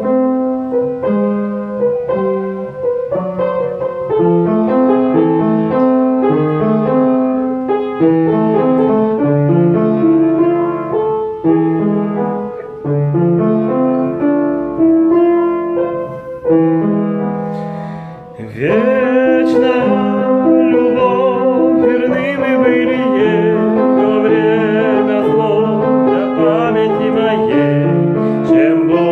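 Piano playing chords and a melody. About two-thirds of the way in, a singing voice with wide vibrato joins over the accompaniment.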